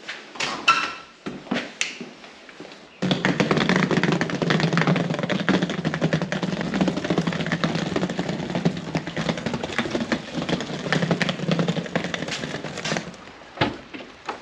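Wheels of a rolling gear bag rattling over wet brick paving: a loud, dense clatter that starts suddenly about three seconds in and stops near the end. A few clicks and knocks come before it, and a single knock follows it.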